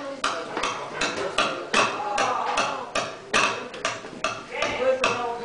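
A small acoustic jazz group playing a swing tune live: double bass plucked under sharp, evenly spaced chord strokes, about four a second, with a melody line moving above.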